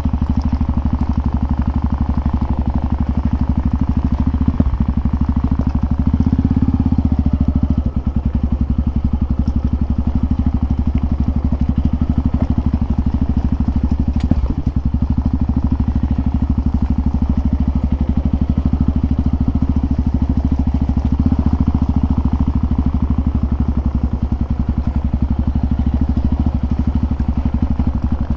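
Single-cylinder trail motorcycle engine running loud and steady at an even engine speed, with no revving, and a couple of brief knocks along the way.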